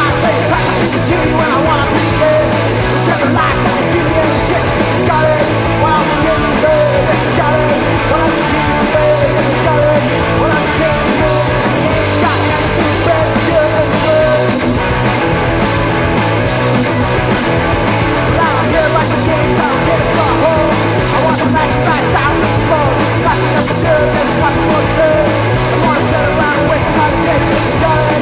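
Garage punk rock song played by a band: electric guitar and bass with singing, loud and unbroken.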